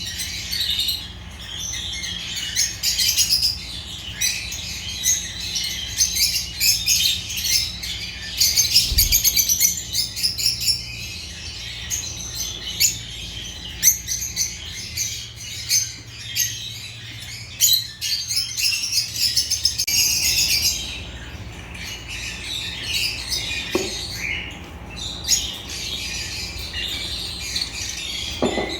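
Agapornis lovebirds chirping: a constant stream of rapid, high-pitched chirps with louder bursts of chatter.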